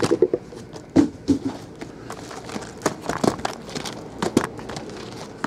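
Sealed, shrink-wrapped trading-card boxes being handled and set down on a table: a sharp knock about a second in, then scattered softer knocks and rustling.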